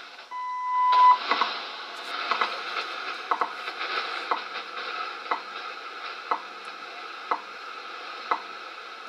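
WWV shortwave time signal on 10 MHz AM, heard through an Icom IC-R71E receiver's speaker. A long beep of just under a second sounds near the start: the minute marker. After it comes a steady tick once every second, the seconds pulses, over static hiss.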